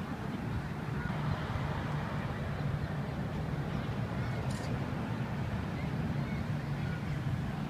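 Steady low drone of a distant engine, with a brief faint click about four and a half seconds in.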